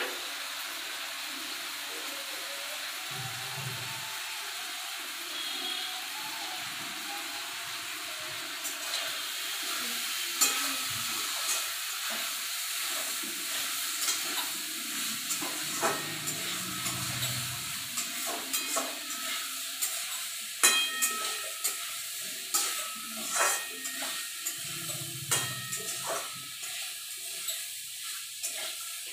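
Food frying with a steady sizzle in a steel kadai, while a metal spatula stirs it, scraping and clicking against the pan. The spatula strokes start about a third of the way in and come more often in the second half.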